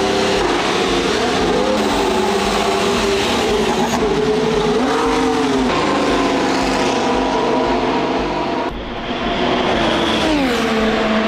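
Ferrari Formula 1 car's turbocharged V6 engine running hard, its pitch rising and falling with throttle and gear changes. Near the end the revs fall away.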